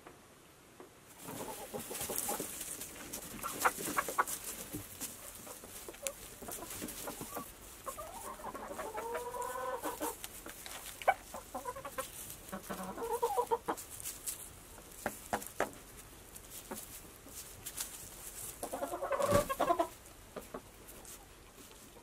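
A flock of chickens clucking while feeding, with longer drawn-out calls about eight, twelve and nineteen seconds in. Underneath are many short sharp ticks of pecking and scratching in straw.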